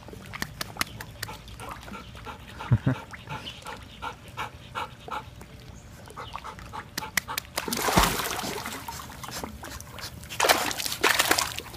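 Black Labrador in a swimming pool whimpering and panting softly, then two bursts of splashing water as it moves through the pool, about eight seconds in and again near the end.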